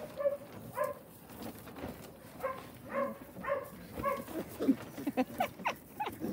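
4½-week-old puppies yapping as they play-fight: short yaps about twice a second, turning to quicker, higher yips in the last couple of seconds.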